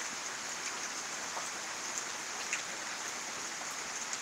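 Steady hiss of rain falling, with scattered drops ticking.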